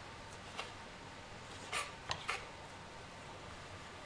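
Knife cutting bacon on a wooden chopping board: a handful of short, sharp knocks in the first half.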